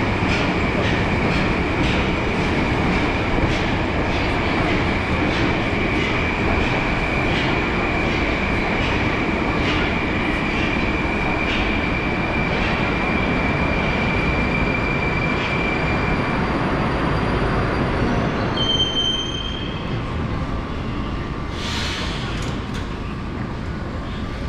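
Metro train standing at a station platform: steady running noise with a high whine and faint regular clicks, which die away about two-thirds of the way through. A short high chime follows, then a brief hiss.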